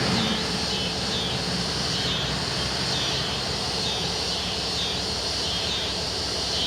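EMD GP20 diesel locomotive running, with a low hum and a steady high-pitched hiss that pulses over it.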